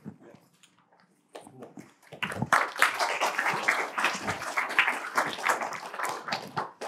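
Audience applause: many hands clapping, starting about two seconds in and stopping shortly before the end.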